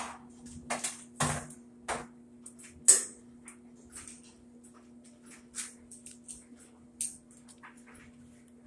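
Sharp clicks and knocks of hard plastic and sheet metal as the top panel of a top-load washer is worked loose by hand and lifted. The clicks come several in quick succession at first, then more sparsely, over a steady low hum.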